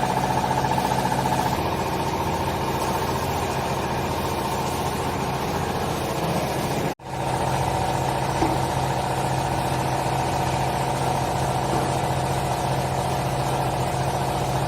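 Hydraulic textile baler's motor and pump running with a steady hum; the sound breaks off for an instant about halfway, then carries on unchanged.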